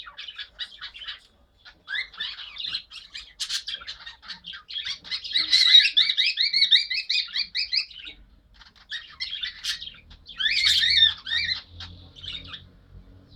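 Pet birds chattering and squawking in rapid runs of short, high notes, in several bursts with brief pauses, loudest about halfway through and again near the end.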